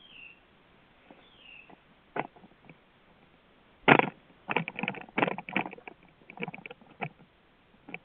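A small bird gives two short falling chirps, then, from about four seconds in, a loud, irregular run of knocks, scrapes and clicks close to the microphone as the security camera is handled and turned to a new view.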